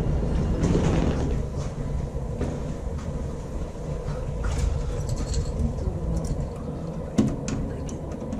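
Train running on the rails: a steady low rumble, with a few sharp clicks about seven seconds in.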